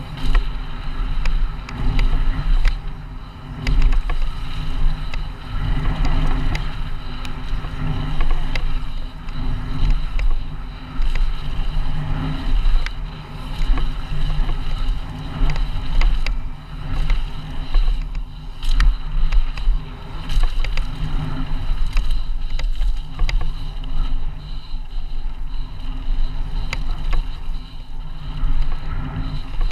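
Wind buffeting an action camera's microphone as a mountain bike descends a dirt singletrack at speed, with a rumbling, surging low noise and frequent sharp clicks and knocks from the bike rattling over the bumps.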